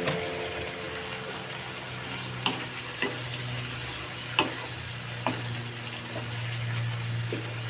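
Eggplant and string beans sizzling in a frying pan, with several sharp clicks of a utensil against the pan as they are stirred.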